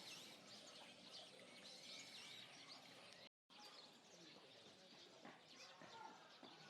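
Faint chirping of many small birds, with a brief total dropout about halfway through.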